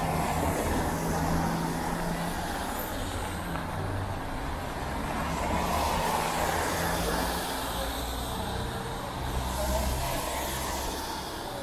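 Road traffic on a wet street: tyres hissing on wet asphalt over a low engine hum, swelling as vehicles pass, most plainly near the end.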